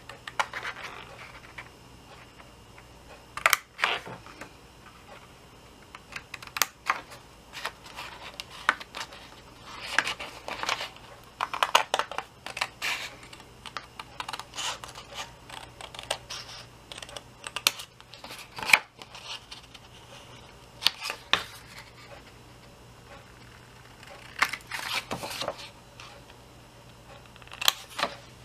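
Scissors cutting a printed paper box template: irregular sharp snips and short rasping cuts, with paper handled between them.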